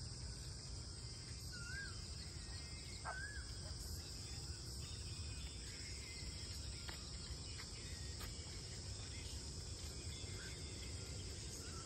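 Outdoor ambience: a steady, high-pitched insect chirring over a low background rumble, with a bird giving two short, wavering whistles in the first few seconds.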